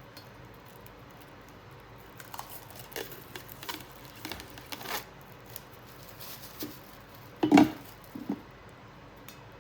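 Unboxing of a stainless steel mixing bowl set: packaging rustles and crinkles among small scattered clicks, then a single solid knock about three quarters of the way through, with a lighter one just after.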